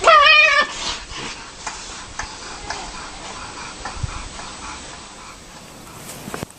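A cat's loud, wavering yowl, a bit over half a second long at the start, then scattered short scuffling clicks.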